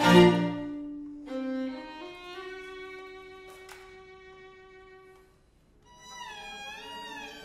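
String quartet (two violins, viola and cello) playing: a loud chord cuts off, then soft held notes with a brief sharp tap fade nearly to silence, and about six seconds in a violin line enters with a wide, wavering slide up and down in pitch.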